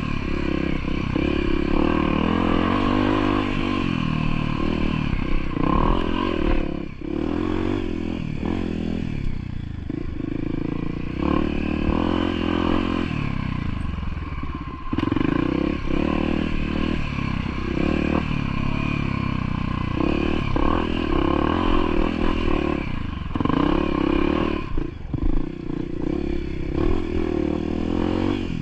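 Motorcycle engine running as it rides a rough trail, its pitch rising and falling with the throttle, with frequent knocks and rattles.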